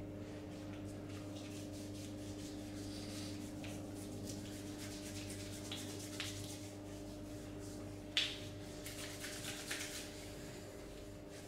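Hands rubbing and stroking skin during a massage: soft, irregular swishing strokes, with a sharper stroke about eight seconds in, over a steady low hum.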